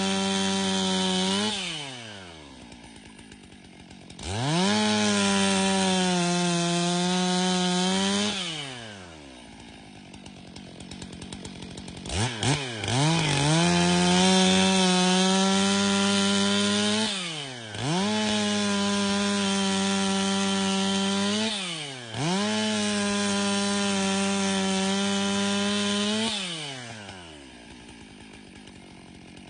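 Stihl MS 661 professional chainsaw, a single-cylinder two-stroke, run at full throttle through a log in several long runs, each held at a steady high pitch. It drops back to idle about two seconds in and again around eight seconds, revs back up, dips briefly twice mid-way, and settles to idle near the end.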